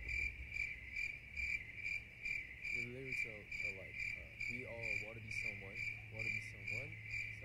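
Cricket chirping sound effect: a high, even chirp repeating about three times a second, the comedy gag for an awkward silence. Faint voices murmur underneath in the middle.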